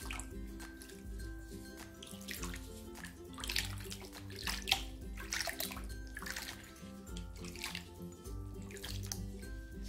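Water splashing and sloshing in a plastic basin as a kitten is washed by gloved hands, the splashes loudest around the middle, over background music.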